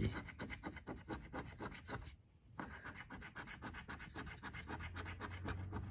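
The coating of a scratch-off lottery ticket being scraped off in quick, repeated strokes, with a short pause about two seconds in.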